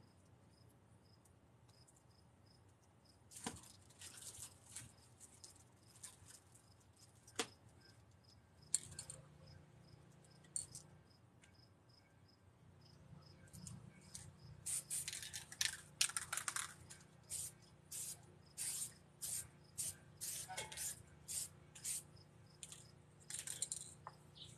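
Aerosol spray paint can hissing: a few scattered clicks and short hisses, then about two-thirds of the way in longer hisses followed by short bursts about twice a second.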